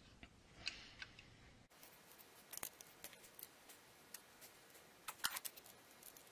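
Faint, scattered clicks and small metallic handling noises from oil-line fittings being worked by hand on a surface grinder's way oil pump, with a short cluster of sharper clicks about five seconds in.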